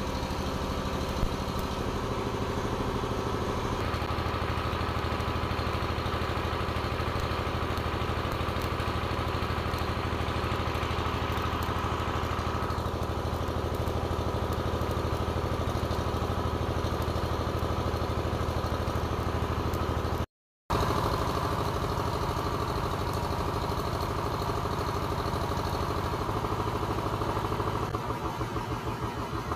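A small generator engine running steadily at constant speed, with the crackle of arc welding on a steel excavator bucket over it. The sound drops out for a moment about two-thirds of the way through.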